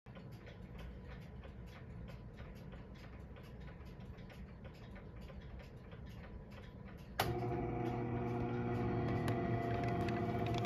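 Player piano mechanism ticking faintly about four times a second while the paper roll's leader feeds across the tracker bar. About seven seconds in, a louder steady drone of sustained tones starts suddenly as the instrument's pneumatic action gets going, just before the roll's music begins.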